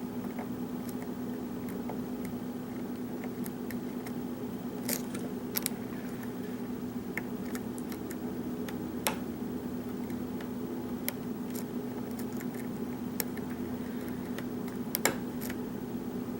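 Small, sharp metallic clicks, scattered a second or more apart, from a Matador lock pick working the pins of a Schlage pin-tumbler lock under a tension wrench. A steady low hum lies beneath them.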